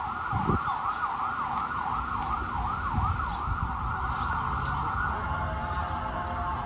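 Emergency vehicle siren in a fast yelp, rising and falling about three times a second, then turning flatter and broken after about five seconds, over a low rumble.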